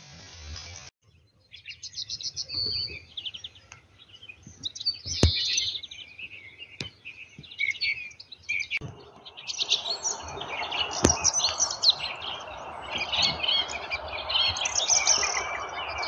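Small songbirds chirping and trilling in a spring woodland, several birds overlapping in short high phrases. From about ten seconds in, a steady rushing hiss rises underneath the birdsong.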